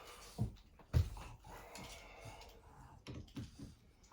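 Short dull knocks while flat-pack furniture is handled: two thuds about half a second and a second in, then a few softer knocks near the end.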